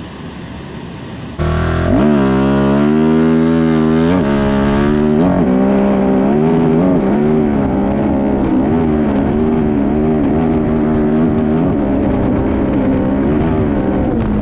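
Rally motorcycle engine picked up by an onboard camera: it cuts in loud about a second and a half in, its revs rising and dipping with the throttle, then runs on more steadily with small surges.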